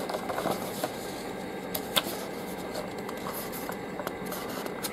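Paper rustling as the pages of a printed radio user manual are handled and turned, with a couple of sharp crinkles about two seconds in.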